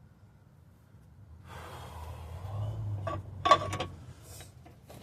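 A person's heavy breath, then several sharp metal knocks and clanks as parts and tools are handled, the loudest about three and a half seconds in.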